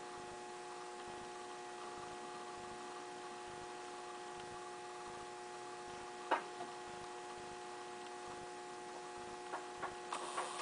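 A steady electrical hum made of several held tones, with one sharp click about six seconds in and a few lighter clicks near the end.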